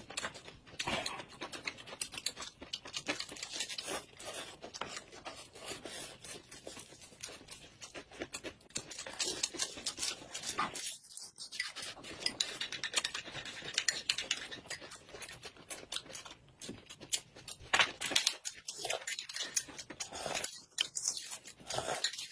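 Close-up eating sounds: wet chewing and lip-smacking of rice and lettuce-wrapped meat, with slurped sips of a drink, in a dense run of small clicks.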